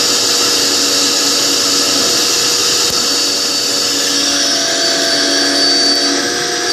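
CNC router spindle milling with a vacuum cleaner running for dust extraction: a steady, loud mix of motor whine and cutting noise, its pitch shifting slightly about four seconds in.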